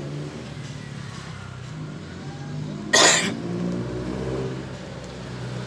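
A motor vehicle engine running nearby, its pitch shifting up and down and growing a little louder in the second half. About three seconds in there is one short, loud burst of noise.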